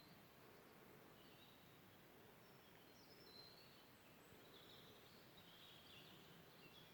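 Near silence in woodland, with faint, high small-bird chirps and calls scattered through.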